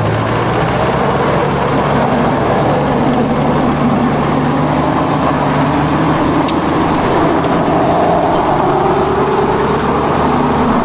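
Off-road 4x4's engine running loudly and steadily as it is driven over terrain, its pitch rising and falling slightly with the throttle.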